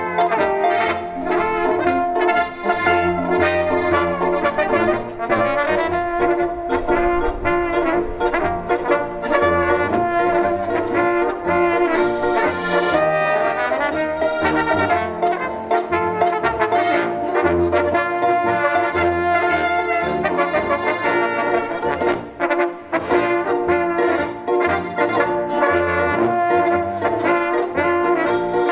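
Alpine folk music played live by a small ensemble, led by two trumpets and a trombone over tuba bass, with Steirische button accordion and harp. It plays continuously.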